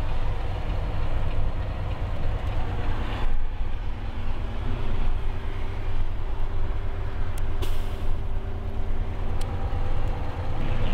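Truck engine and road noise heard inside the cab while cruising at highway speed: a steady low drone with a faint engine hum, and a few short clicks in the second half.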